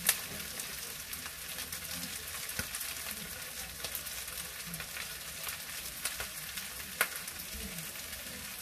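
Diced potatoes, mushrooms and ham sizzling in a stone-coated frying pan as a spatula stirs and turns them, with scattered scraping clicks of the spatula on the pan, two of them sharper: one at the very start and one about seven seconds in.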